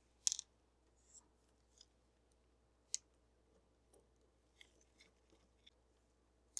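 A few faint, sharp clicks and light ticks of small metal parts being handled, with near silence between them: two close together at the start, a clearer single click about three seconds in, and a few softer ticks after it.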